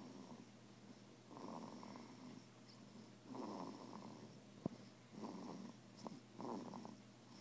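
A sleeping baby snoring quietly, a noisy breath every second or two, with one sharp click about four and a half seconds in.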